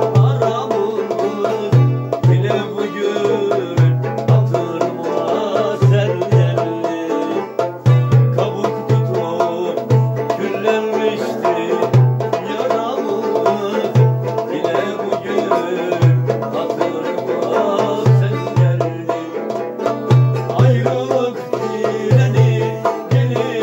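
Bağlama (long-necked Turkish saz) plucked with a plectrum, playing an instrumental passage of a türkü over a steady low beat, about one thump a second.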